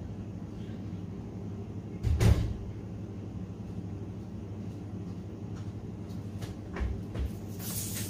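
A steady low machine hum runs throughout, with one loud thump about two seconds in and two softer knocks near the end. Footsteps and clothing rustle come in at the very end as someone walks up.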